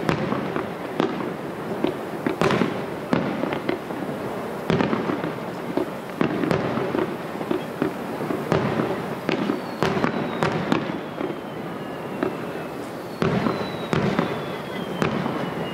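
Aerial firework shells bursting one after another in an irregular run of booms and crackles, with two long descending whistles in the second half.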